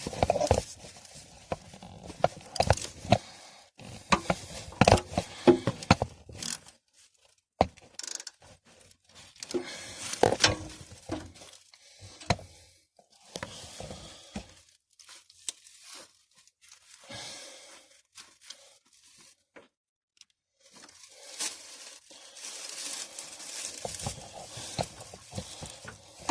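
Irregular clicks, knocks and scrapes of hand tools against metal, with rustling, from someone working loose the starter bolts under a 1979 Ford Bronco.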